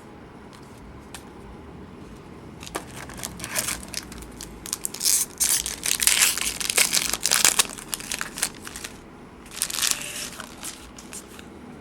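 Crinkly foil wrapper of a trading card pack being torn open and crumpled, in crackling bursts from about three seconds in to eight seconds and again briefly near ten seconds.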